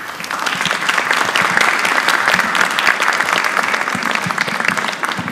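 Studio audience applauding, many hands clapping, building to its loudest in the middle and thinning out near the end.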